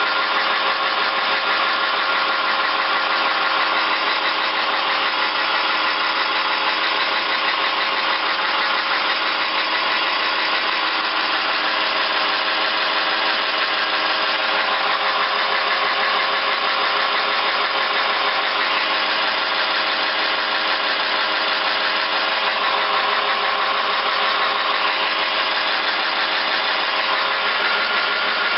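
Van Norman No. 2 duplex milling machine running with its power table feed in gear: an electric motor, belt drive and gear train giving a steady, even whir with a constant gear whine.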